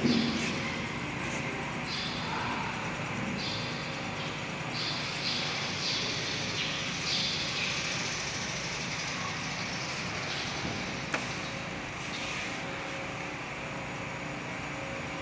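Footsteps scuffing on a tiled church floor, roughly one step a second, over a steady background hum, with one sharp click about two-thirds of the way through.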